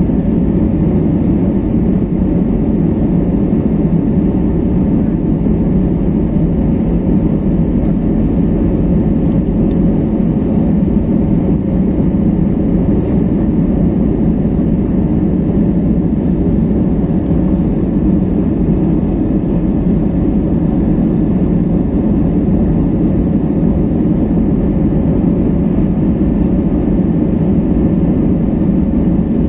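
Jet airliner cabin noise during the climb after takeoff: the engines at climb power and the rush of air along the fuselage, heard from a window seat as a deep, even rumble with a faint steady tone above it.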